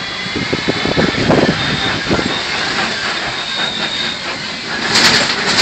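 Safari truck rolling over a rough, bumpy track, its body and frame rattling with a run of knocks in the first couple of seconds over steady road noise. A short hiss comes near the end.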